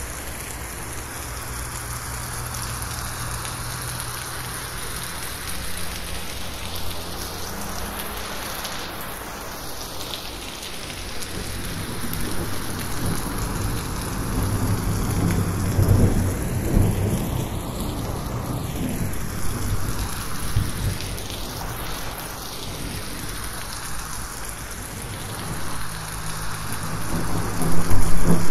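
Heavy rain falling steadily on a roof, mixed with 8D panning so it seems to sweep around the listener. Thunder rumbles through the middle and swells louder near the end.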